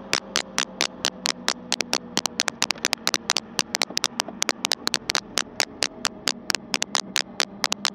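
Raindrops striking the motorcycle-mounted camera as rapid, irregular sharp ticks, several a second, over the faint steady hum of the motorcycle running at cruising speed.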